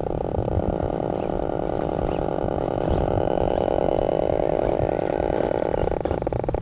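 Electric drive motor and gears of an Axial RC rock crawler whining steadily under load as it crawls up a steep pile of loose gravel, with a low rumble underneath.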